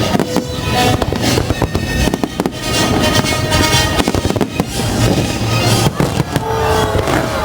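Fireworks display: a dense barrage of shells bursting and crackling, many bangs overlapping in quick succession, with music playing behind.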